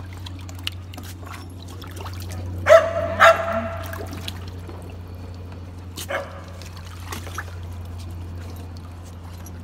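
A dog barks twice in quick succession about three seconds in, then gives a shorter, weaker bark near six seconds, while water splashes in a plastic wading pool as dogs paw and dip their noses for food.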